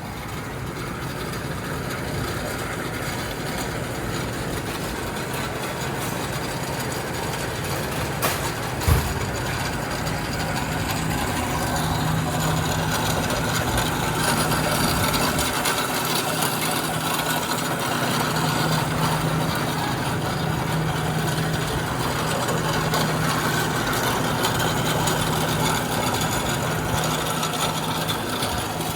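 DAKE 9 x 12 inch manual horizontal step-pulley bandsaw running steadily, a constant low hum under mechanical noise that grows slightly stronger about twelve seconds in. A single sharp knock about nine seconds in.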